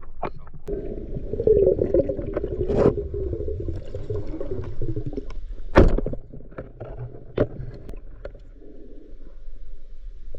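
Water churning and gurgling, strongest in the first half and easing off later, with three sharp knocks or clicks.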